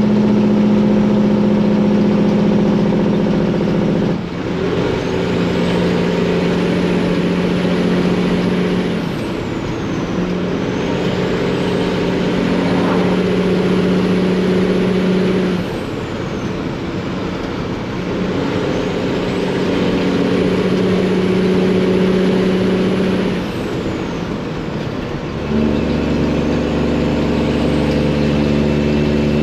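Freightliner semi truck's Detroit diesel engine pulling through the gears, its note dropping at each of about four upshifts. A faint turbo whistle rises and falls between shifts.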